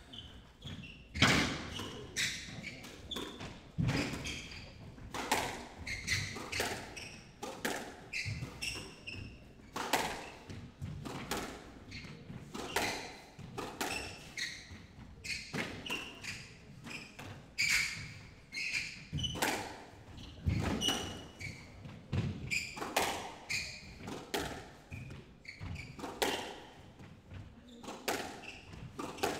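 Squash rally: the ball cracks off rackets and thuds against the walls of the court again and again, at an uneven pace of about one or two hits a second, with shoes squeaking on the wooden floor. The hits start about a second in.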